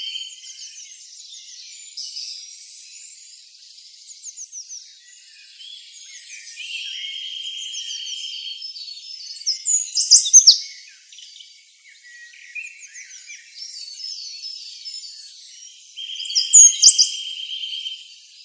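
Chirping bird calls over a steady chirring ambience, with a buzzy trill that comes back about every nine seconds, like a looped nature-sound track. Sharp, high calls are loudest about halfway through and again near the end.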